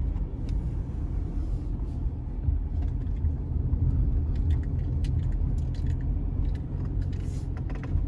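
Steady low rumble of a car driving, heard from inside the cabin: tyre and engine noise, with a few light clicks and ticks on top.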